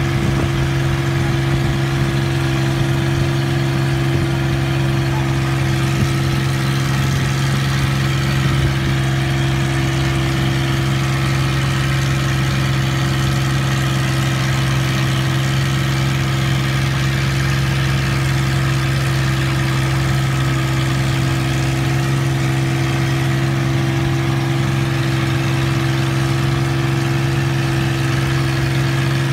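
Long-tail boat engine running at a steady cruising speed, a constant drone with no change in pitch.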